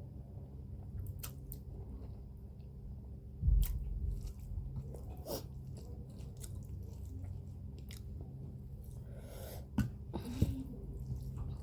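A person chewing and biting through a mouthful of instant noodles, with scattered wet mouth clicks and a louder bump about three and a half seconds in, over a steady low hum.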